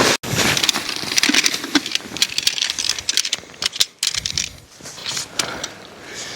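Camping gear being handled, rustling with many sharp clicks and rattles.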